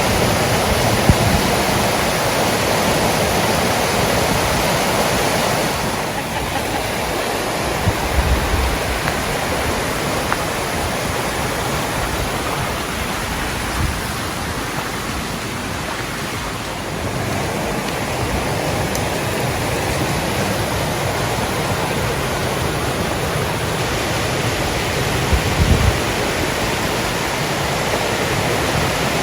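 Rushing water of a mountain river tumbling over rocks and small cascades, a steady loud rush, with a few brief low thumps.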